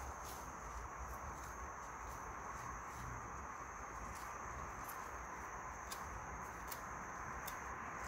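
Pruning shears snipping pine shoots now and then, as faint sharp clicks, over a steady high-pitched insect chirring.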